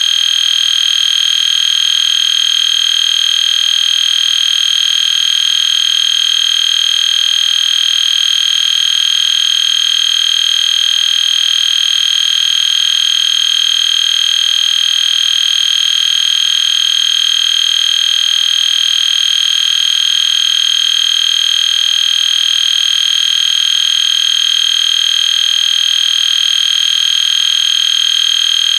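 EST Genesis fire alarm horn sounding one loud, steady high-pitched tone without a break, edited to run continuously instead of in its usual pulses.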